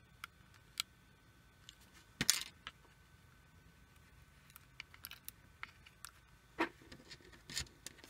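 Small scattered clicks and crackles of copper foil shielding tape being picked at with a needle and peeled back off a circuit board, with one louder crackle about two seconds in.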